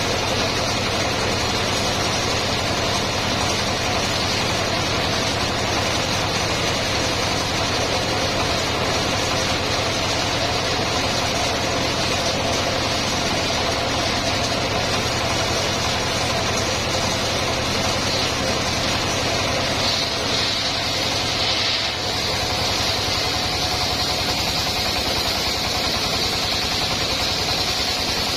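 Homemade engine-driven circular saw rig running steadily, with a continuous high whine over the engine noise and a brief dip in level about three quarters of the way through.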